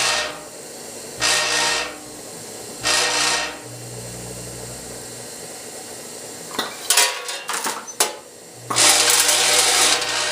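Vibratory feed pans of an automatic weigh-fill scale buzzing with a mains hum, switching off and on in pulses as the feed is cut back and restarted: two short bursts early on, then steady buzzing again near the end. In the lull, a burst of clicks and rattling comes from the machine's gates and wrapped drops.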